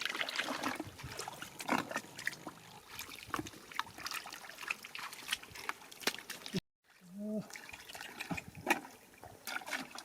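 Water trickling and splashing, with many small sharp clicks and knocks. The sound breaks off completely for a moment about two-thirds of the way through.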